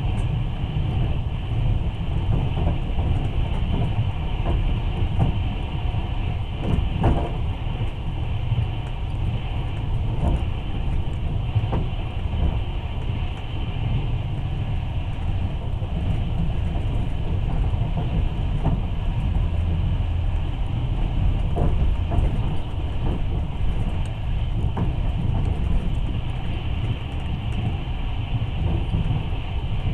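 Long-distance passenger train running, heard from inside the carriage: a steady rumble of wheels on the rails, with a sharp knock every few seconds.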